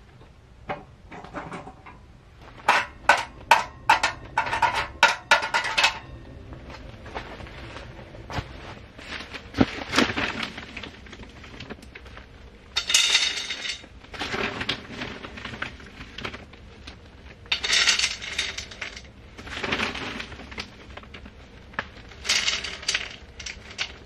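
Metal cookware and utensils being handled: a quick run of sharp clinks, then several short scraping or rustling bursts spread over the rest of the time.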